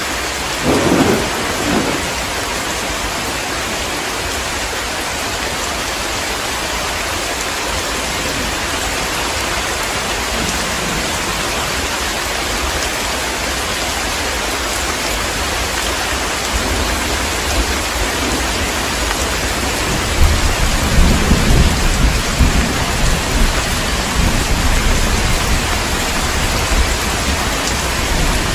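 Heavy rain falling steadily with an even hiss. A short clap of thunder comes about a second in, and a long rolling rumble of thunder builds through the second half.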